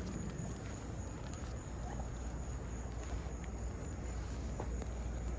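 Insects, crickets or cicadas, trilling steadily in one thin high tone over a low rumble of outdoor noise.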